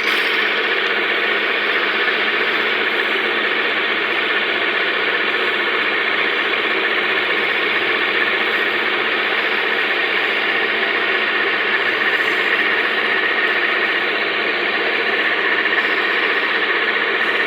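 A motor-driven workshop machine running steadily while the wooden dholak shell is polished, giving an even mechanical whir with no breaks.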